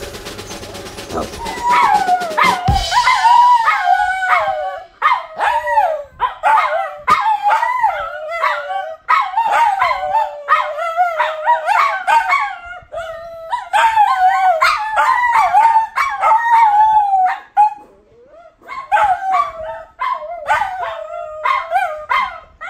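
Two small dogs howling together, long wavering howls one after another with a short break about three-quarters of the way through.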